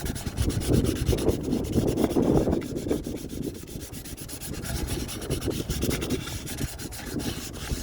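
Sandpaper rubbed back and forth by hand, cleaning up the corroded sealing face where the old thermostat and its O-ring came off. The strokes are quick and uneven, heaviest in the first few seconds.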